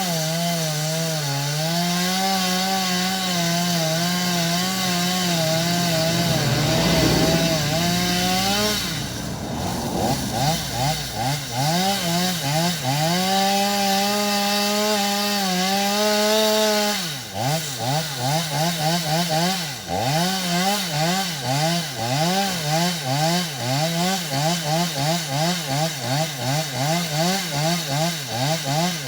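Two-stroke chainsaw engine running at high revs, held steady as if under load in a cut, with a rougher, noisier stretch about 7 to 11 seconds in. From about two-thirds of the way through, the throttle is blipped over and over, the revs rising and falling about one and a half times a second.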